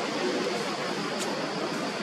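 Steady, even hiss of background noise with no distinct nearby sound, and a faint short high click about a second in.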